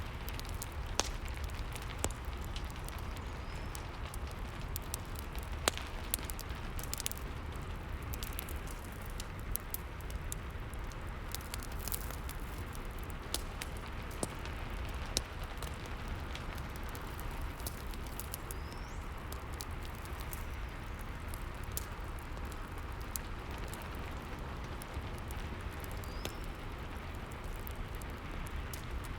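Rain and fireplace ambience: a steady hiss of rain under irregular sharp crackles and pops from a burning fire, over a low rumble.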